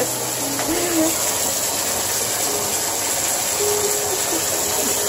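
Water running steadily from the tap into a bathtub, an even rushing hiss.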